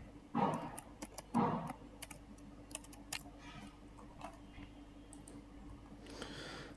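Computer keyboard typing: scattered single keystrokes as a password is entered, thinning out after about three and a half seconds, with two louder, duller sounds in the first second and a half.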